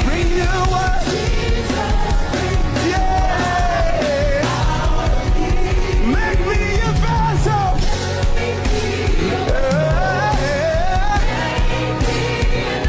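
Live gospel worship music: a band with a steady beat, and a singer's long sliding vocal lines over it.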